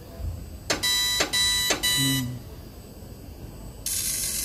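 Electronic machine beeping from a car-factory welding exhibit: a buzzy tone pulsing several times for about a second and a half. It is followed near the end by a burst of hiss lasting about a second.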